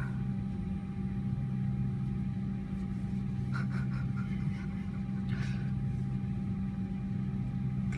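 A steady low mechanical hum, with a few brief soft rubbing noises about three and a half and five and a half seconds in.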